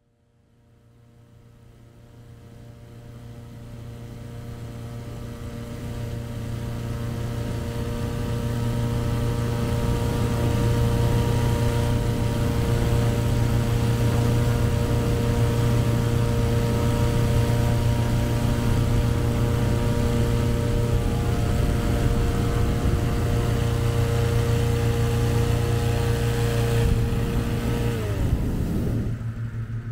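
A vehicle engine running at a steady speed, fading in gradually over the first several seconds; near the end its pitch drops as it slows.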